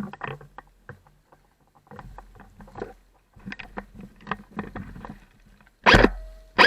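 Airsoft firefight: irregular clusters of sharp pops and taps from airsoft guns firing, with one much louder sharp crack near the end.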